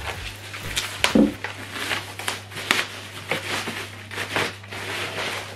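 Plastic packaging crinkling and rustling in irregular bursts as it is pulled off a subwoofer, with a loud crackle about a second in.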